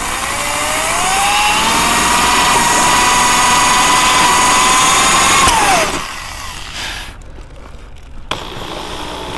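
Corded DeWalt electric drill boring through an aluminium tower foot: the motor whine rises as it spins up, holds steady for a few seconds, then falls away about six seconds in as the trigger is let off. A quieter stretch follows.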